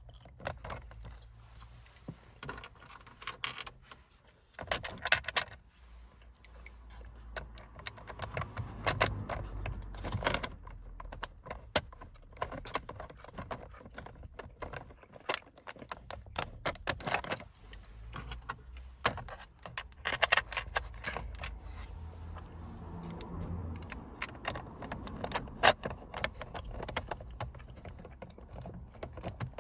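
Irregular clicking and rattling of small hard parts being handled: Phillips screws being driven back in to fix a phone mount to a plastic rev-counter housing, with tool and plastic clicks.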